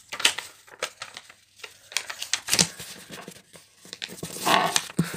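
A sheet of notebook paper being handled and folded by hand into a square: irregular rustling and crinkling, with a louder stretch of rustling near the end.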